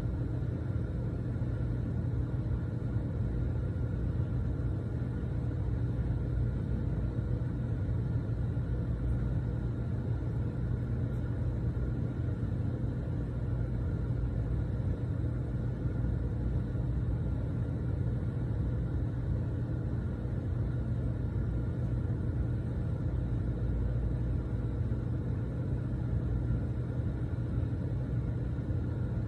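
Pressure washer running steadily, a constant low drone with no change in speed.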